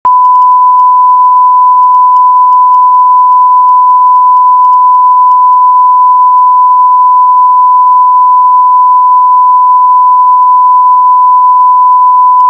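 Broadcast line-up test tone: a single loud, steady pure tone held without a break, laid at the head of a broadcast recording for setting audio levels.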